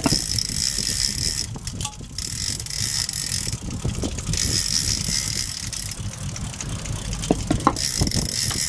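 A big-game conventional fishing reel is cranked in spurts as a hooked fish is reeled in, its gears whirring and ratcheting, stopping and starting again. Wind rumbles on the microphone throughout, and a few sharp clicks come near the end.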